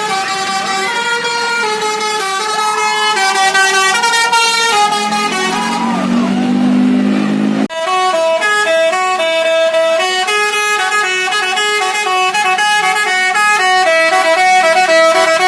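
Basuri telolet musical horn, a multi-trumpet bus horn, playing a tune of stepped notes. It cuts off abruptly about halfway through, and another tune starts at once.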